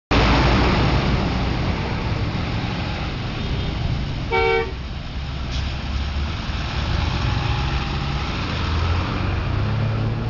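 Road traffic with a heavy vehicle's engine rumbling steadily, and a single short horn toot about four and a half seconds in.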